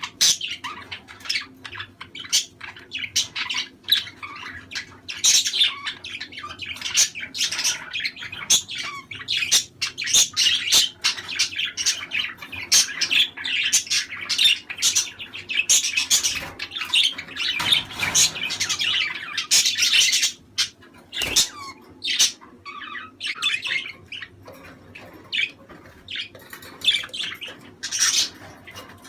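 Budgerigars chattering: a dense run of rapid, overlapping chirps and squawks, busiest in the middle and thinning out over the last third.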